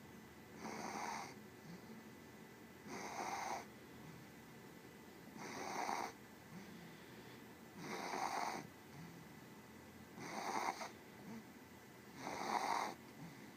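Regular snoring: six snores about two and a half seconds apart, each lasting under a second.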